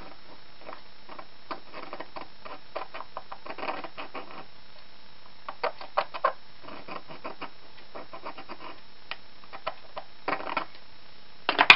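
Light scratching and small clicks of a thin steel strip being marked and handled on a workbench, in irregular bursts, with a sharper knock near the end.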